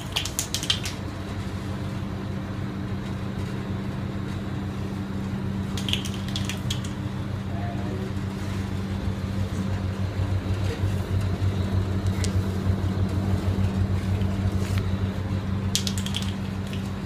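A steady low hum, with three short bursts of sharp clicking: near the start, about six seconds in, and near the end.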